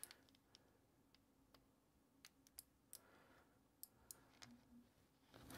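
Near silence with a few faint, scattered clicks: small parts being handled as looped diode leads are hooked onto the pins of keyboard switches in the plate.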